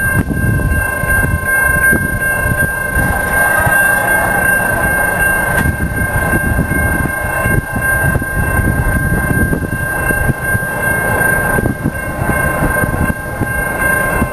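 Air horn of an approaching CSX freight locomotive, heard from a distance: one long, steady chord that starts and cuts off sharply, over gusty wind noise on the microphone.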